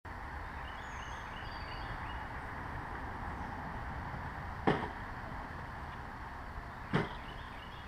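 Two sharp knocks about two seconds apart, the first about halfway through and the second near the end, as bags of supplies are set down on a ride-on mower's seat, over a steady outdoor hiss with a few faint high chirps early on.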